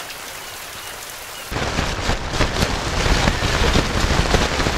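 Rain falling, first as a steady hiss; about a second and a half in it turns suddenly louder, with dense crackling patter and a low rumble, as of rain and wind hitting the microphone.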